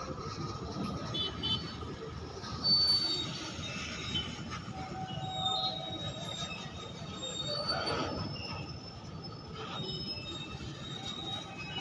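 Indian Railways freight train of covered box wagons rolling past: a steady low rumble of wheels on rail, with thin high wheel squeals coming and going.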